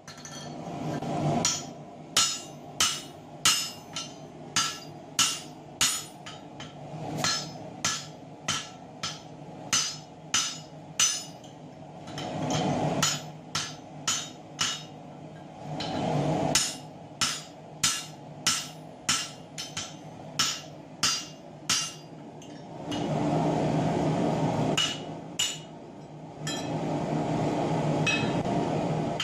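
Hammers striking hot 4140 steel on an anvil in hand forging with a striker: a steady run of ringing metal blows, about two a second, with a couple of short pauses. A steady rushing noise runs underneath and swells louder several times.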